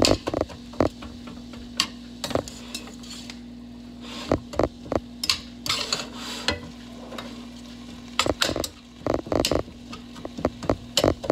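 Black plastic meat chopper clacking and scraping against a stainless steel pan as ground turkey with onion and herbs is broken up and stirred. The strokes are irregular and come in bunches, thickest in the last few seconds, over a steady low hum.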